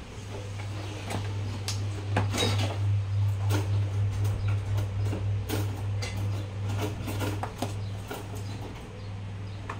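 Steady low hum with scattered light clicks and clinks, as of small metal tools and parts being handled on a workbench.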